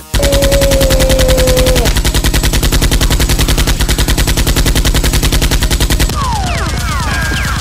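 Machine-gun fire sound effect: a long, rapid, evenly spaced string of shots that starts abruptly. A steady high tone sounds under the first two seconds. From about six seconds in, the firing drops a little in level and is joined by repeated falling whistles.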